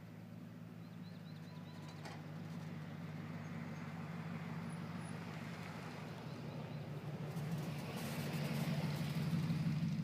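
Motor vehicle engine: a steady low hum, unchanging in pitch, that grows louder toward the end as the vehicle approaches.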